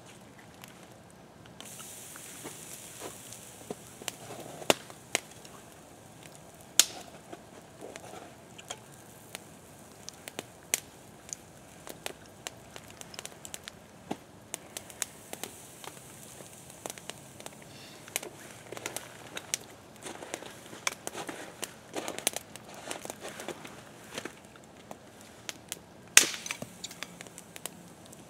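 Small wood campfire crackling, with irregular sharp pops and snaps throughout and the loudest snap near the end.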